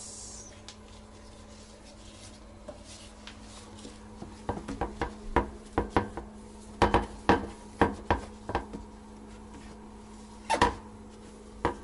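Damp cloth wiped briskly over the plastic inside of a toilet lid by a gloved hand: a run of short, irregular squeaky rubbing strokes against the hard plastic, starting about four seconds in, the sign of a surface wiped clean.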